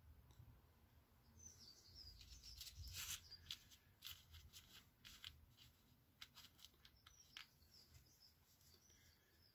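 Near silence, broken by a scatter of faint sharp clicks and light taps from handling small plastic model parts and a plastic glue bottle, bunched in the middle and strongest about three seconds in.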